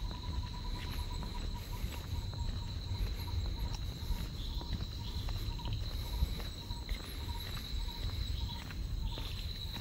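Forest insects chirring: a steady high-pitched drone with a lower, rapidly pulsing chirp beneath it. A low rumble, like wind or handling on the microphone, runs under the insects.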